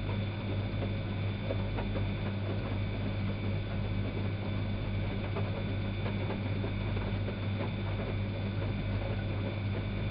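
Elin WM26AAA washing machine running: a steady low hum with light, irregular ticking and patter throughout.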